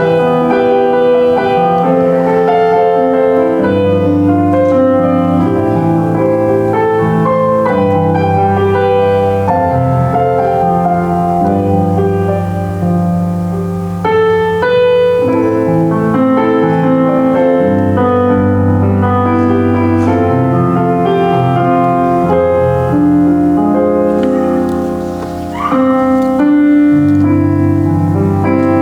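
Solo piano playing a slow worship piece in full chords, with a melody over sustained bass notes. It eases off briefly near the end, then picks up again.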